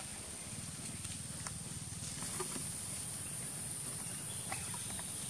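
Steady outdoor background hiss with a constant high thin note and a few soft ticks; no clear event stands out.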